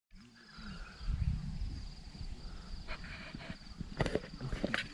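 Insects chirring in a steady high trill, over a low rumble and several sharp knocks in the second half.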